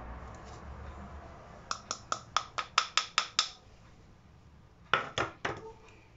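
Fine metal mesh sieve being tapped to sift powder into a glass bowl of batter: a quick run of about nine sharp taps, then three more a second and a half later.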